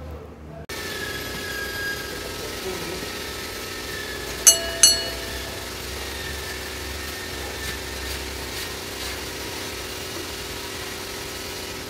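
A steady mechanical hum with several held tones, broken by two sharp, ringing clinks in quick succession about four and a half seconds in.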